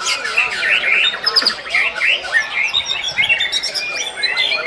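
White-rumped shamas (murai batu) singing, a dense run of fast overlapping chirps, trills and whistles.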